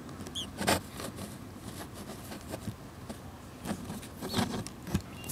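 Nestling birds giving a couple of short high cheeps, begging for more food, among rustling and knocks from handling near the microphone.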